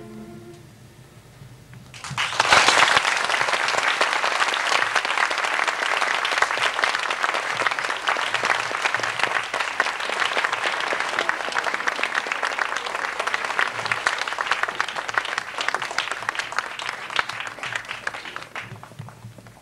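A boys' choir's last sung note ends, and about two seconds later the audience breaks into applause, dense and steady, which stops fairly abruptly shortly before the end.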